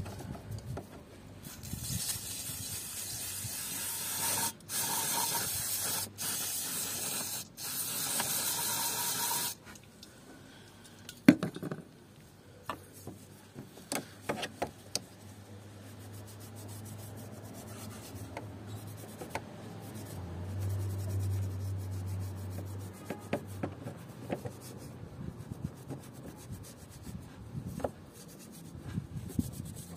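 Aerosol cleaner sprayed onto an engine's pump mounting face in four hissing bursts, each one to three seconds long, followed by quieter rubbing and small clicks of wiping the surface clean.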